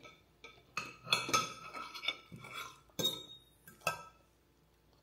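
Cutlery clinking against plates at a meal table: a series of sharp clinks, some ringing briefly, the loudest about three seconds in.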